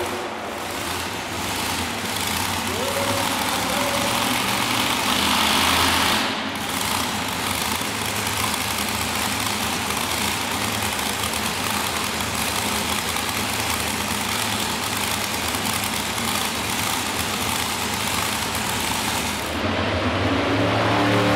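Modified pulling tractor's engine idling while hooked to the sled, a steady drone with a constant noisy haze over it. Shortly before the end another tractor's engine comes in with a clearer pitch.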